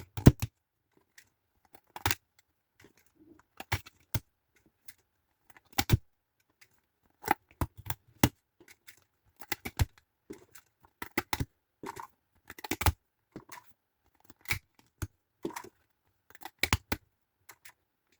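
Irregular clicks, taps and light rustles of a boxed card game and its packaging being handled and unpacked. A few knocks stand out, including one just after the start.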